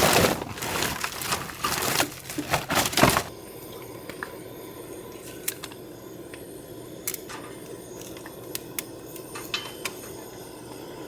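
Loud crackling and popping for about three seconds, from something wet being heated, which is typical of moisture inside it. Then the crackling stops, leaving a low steady background with a few light clinks.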